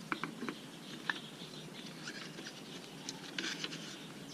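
A few light clicks and taps in the first second, then scattered rustling and scraping as suspension parts are handled and moved around.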